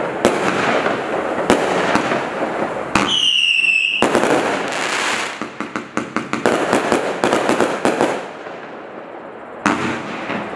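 110-shot firework cake firing: dense crackling, a whistle lasting about a second about three seconds in, then a quick run of sharp bangs. It falls quieter about eight seconds in before another bang near the end.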